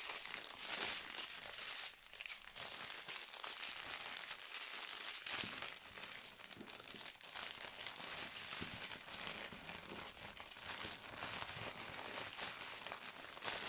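Plastic packaging crinkling and crackling without a break, from the clear film over a diamond-painting canvas and small plastic bags of rhinestone drills being handled.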